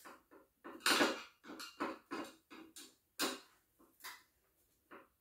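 Irregular clicks, scrapes and knocks of hands working a screwdriver and screws into a monitor's stand mount, loudest about a second in.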